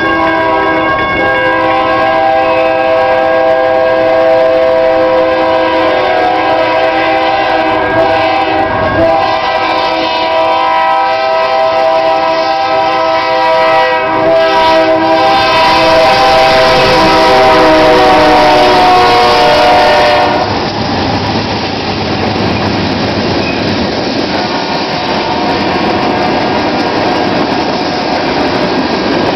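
Air horn of a BNSF freight train's lead locomotive blowing a long multi-note chord as it approaches the grade crossing, with a few short breaks. The chord drops slightly in pitch just before it cuts off about 20 seconds in. After that come the rumble and clatter of the freight cars rolling past close by.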